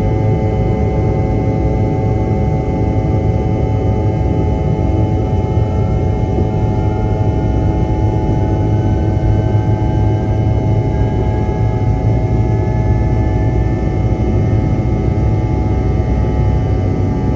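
CRJ200's rear-mounted General Electric CF34 turbofans during the takeoff roll, heard inside the cabin: a loud, steady vacuum-like buzz over a low rumble, with several steady tones and one tone slowly rising in pitch as the engines wind up.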